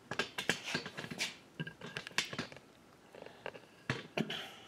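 Scattered light clicks and knocks as a hand handles the carriage apron of a Sheldon metal lathe, irregular and a few to the second.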